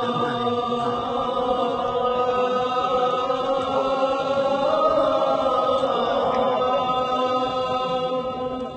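A chanting voice holds one long note almost steady in pitch, rising slightly in the middle.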